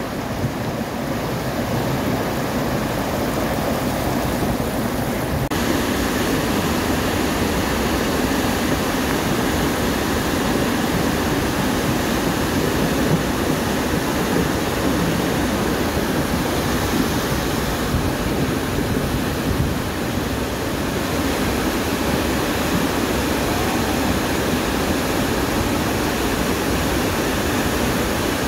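Floodwater rushing down a concrete channel and pouring over a low bridge: a steady, loud rush of muddy water.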